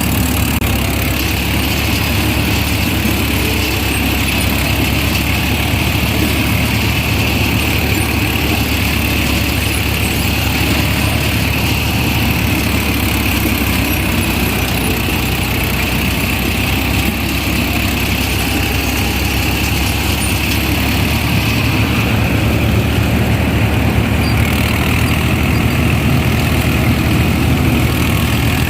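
Tractor-mounted combine harvester running steadily: a low diesel tractor engine drone under a steady high whine from the harvester's machinery.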